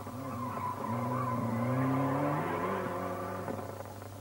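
Ford Escort rally car accelerating hard out of a tight turn on tarmac: the engine note climbs steadily from about a second in, then eases and fades near the end, with tyres squealing.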